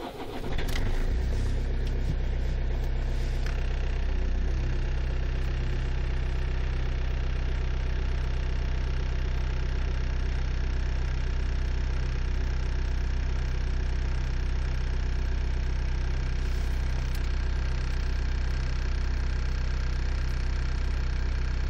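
Toyota Corolla E15's 2.0 D-4D four-cylinder turbodiesel cold-starting at −6 °C: a brief crank right at the start, the engine catching within about a second, then idling steadily, heard from inside the cabin.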